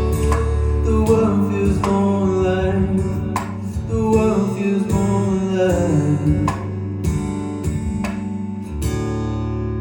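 Live acoustic guitar playing the closing bars of a song: picked notes over held low tones, ending on a chord left ringing about nine seconds in.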